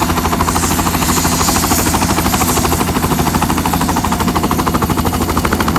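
Helicopter running on the ground with its main rotor turning, giving a rapid, even chopping pulse over a steady engine drone.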